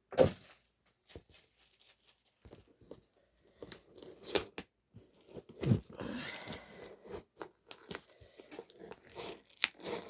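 Album packaging being torn open and crinkled by hand: a sharp noise at the start, then scattered rips, taps and rustles, with a longer tearing stretch about six seconds in.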